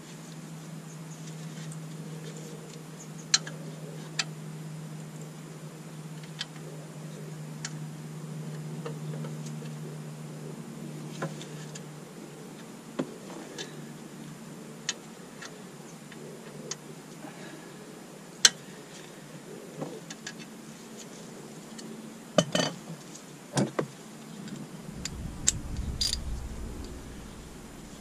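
Scattered sharp metallic clicks and taps from a ratchet on a long extension being worked on a Rover 75 front brake caliper's guide pin bolt, with a short cluster of louder knocks a little past twenty seconds in and a low rumble near the end.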